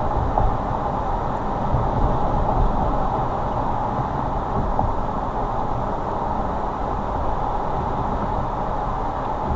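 Steady road noise of a car driving: tyre and engine noise as an even, unbroken hiss, heaviest in the low and middle range.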